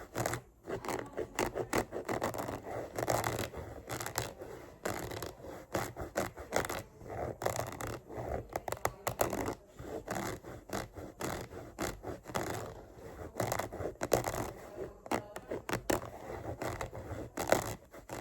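Scratching and scraping on a book as an ASMR trigger: a quick, irregular run of short strokes.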